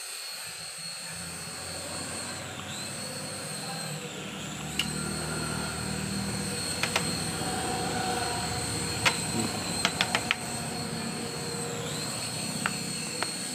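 Small electric coaxial RC toy helicopter flying, its motors and rotors giving a steady high whine over a low hum. The whine dips briefly twice. Several sharp clicks come in the second half.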